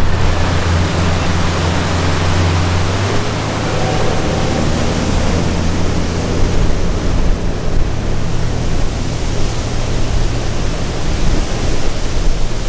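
Loud steady rushing noise with a low steady hum underneath.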